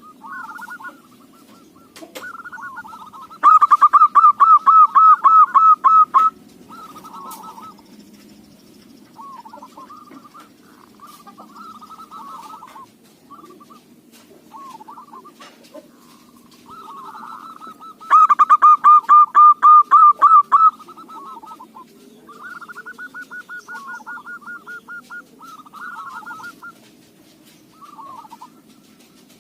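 Zebra dove (perkutut) cooing repeatedly, with two loud runs of rapid, evenly repeated notes, one a few seconds in and one a little past the middle.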